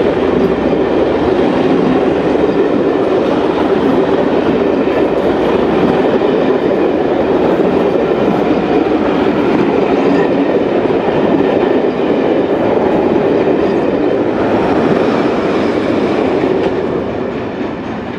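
Passenger coaches of a locomotive-hauled train rolling steadily past on the rails, wheels clicking over the track joints. The sound fades near the end as the last coach clears.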